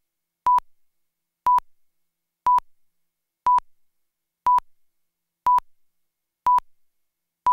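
Electronic timing beeps of a video countdown leader: a short steady-pitched beep once a second, about eight times.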